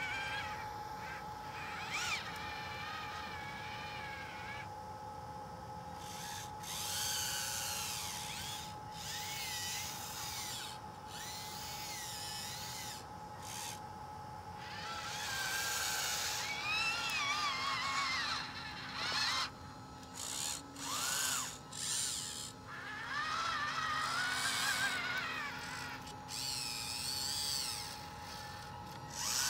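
Electric drive motors and gearboxes of a radio-controlled toy track loader whining in stop-start spurts as it drives and turns, the pitch rising and falling with the throttle, over a steady hum.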